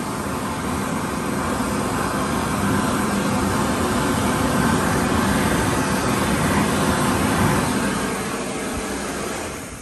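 A 2004 Bobrick B-750 AirCraft hand dryer running: a steady rush of blown air with a low hum. It shuts off near the end.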